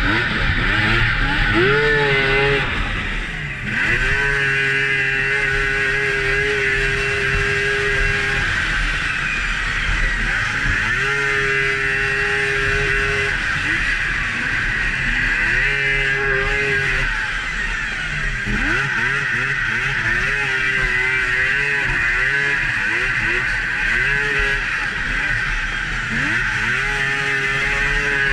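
Polaris XCR 800 three-cylinder two-stroke snowmobile engine heard from on the sled. The throttle is repeatedly opened, the revs rise and hold high for a few seconds, then drop away as it eases off, about six times. A steady hiss runs underneath.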